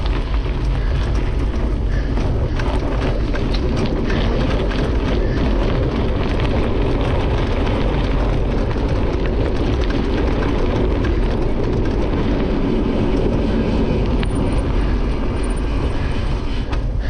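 Cyclocross bike ridden at race pace over gravel and then grass, heard through a bike-mounted camera: a steady rushing noise of knobby tyres on the loose surface, with many small rattles and clicks from the bike.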